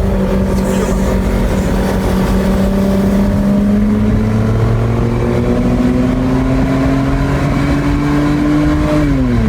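Hyundai Azera V6 with an aftermarket exhaust diffuser pulling hard under acceleration, heard from inside the cabin. Its note climbs slowly in pitch, then drops sharply near the end as the gearbox shifts up.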